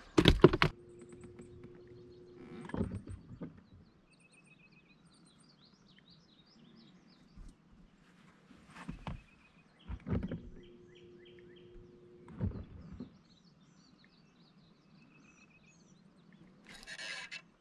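Birds chirping and singing throughout, with a few sharp knocks and two short spells of a steady low hum.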